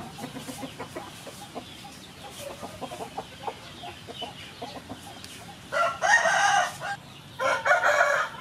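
Chickens clucking, then a rooster crowing loudly about six seconds in.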